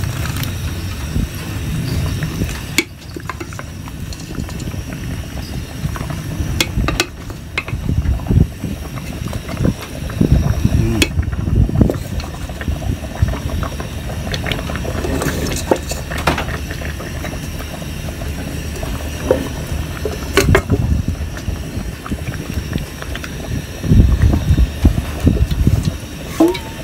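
A pot of asam pedas (spicy-sour fish stew) simmering on a portable gas stove while pieces of grouper are added and stirred with a wooden spatula. There is bubbling, and the spatula knocks against the pot now and then.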